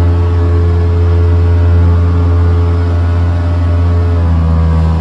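Motorboat engine running steadily at cruising speed, a deep drone heard from inside the boat's cabin, its tone shifting slightly about four seconds in.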